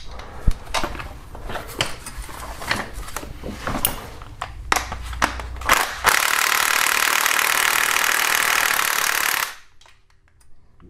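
Scattered metallic clicks and taps of a socket being worked onto a nut, then about six seconds in a power ratchet runs steadily for about three and a half seconds, spinning the nut off, and stops suddenly.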